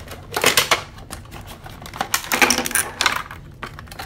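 Plastic toy molds in a clear plastic pack rattling and clattering as they are shaken and tipped out of a cardboard box onto a table: a short burst about half a second in, then a longer clatter from about two to three seconds.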